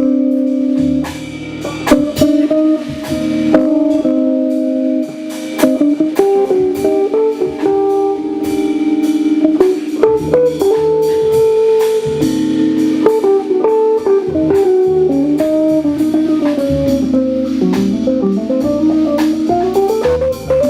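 A small instrumental band playing in a jazz style: guitar over a drum kit and a keyboard bass line, with held notes and busy drum hits throughout.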